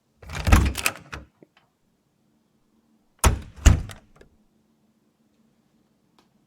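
Two clusters of heavy knocks and thuds about three seconds apart, each a few hits within about a second, over a faint steady room hum.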